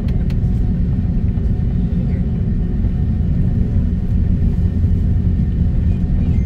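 Steady low rumble heard inside an Airbus A330's cabin while it taxis, from its Rolls-Royce Trent 700 engines at low thrust and the wheels rolling on the taxiway.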